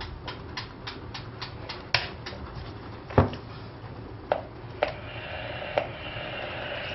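A quick run of light taps, about three or four a second, then a few heavier knocks, the loudest about three seconds in; a faint hiss builds over the last two seconds.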